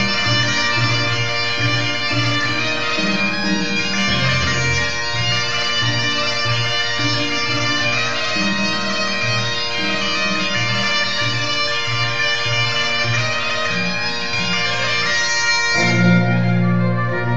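Great Highland bagpipes playing a tune over their steady drones, with a violin and a cello playing along. Near the end the sound changes suddenly and loud low notes take over.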